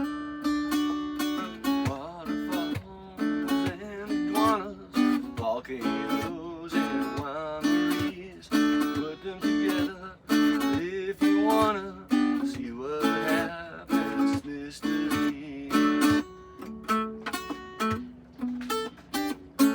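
Instrumental music led by acoustic guitar, plucked and strummed notes, with some wavering sustained notes over it.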